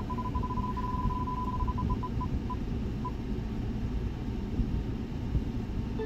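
Online spin-the-wheel name picker ticking through a laptop speaker as the wheel spins: quick, even ticks that slow and space out over about three seconds until the wheel stops, over a steady low hum.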